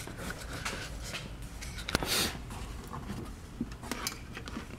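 Faint handling noises: a few light clicks and a short rustle about two seconds in, from hands and the camera moving around a truck's door frame.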